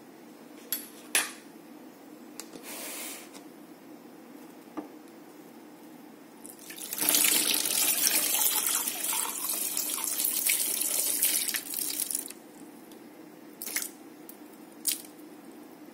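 Water tap running into a stainless steel sink for about six seconds, starting about six and a half seconds in. A few short sharp knocks come about a second in and again near the end.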